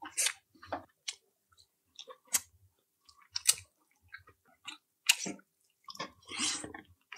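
A person eating close to the microphone: irregular wet chewing, lip smacks and mouth clicks, with a longer, noisier stretch of chewing about six seconds in.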